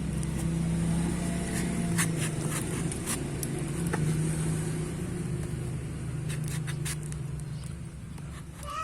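A parcel being opened by hand: scattered scrapes and sharp clicks of packaging, over a steady low hum.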